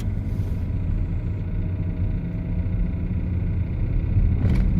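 2015 Luxgen U7 SUV being driven with a cold engine, giving a steady low drone and rumble: the abnormal cold-running noise the owner is asking about. A brief louder noise comes near the end.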